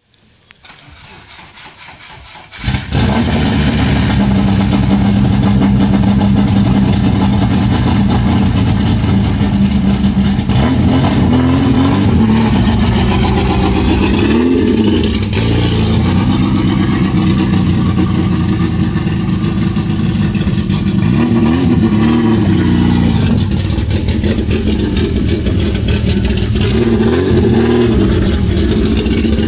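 A Nissan S13 hatch's four-cylinder engine being cranked, catching about two and a half seconds in, then running steadily with a few short blips of the throttle. It is running again, though not perfectly.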